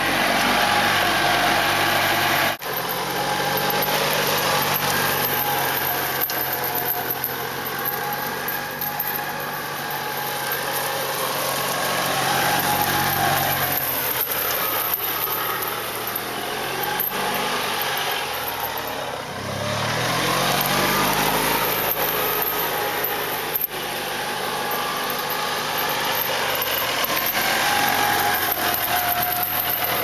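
Golf cart's small engine running while it tows a logging-chain drag, with a steady noisy rush over it. The engine drops off about two-thirds of the way through, then picks up again with a rising pitch, and there are a few sharp knocks.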